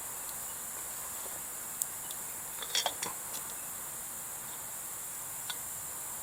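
Steady high-pitched chorus of crickets, with a few short faint clicks about two and three seconds in and once more near the end.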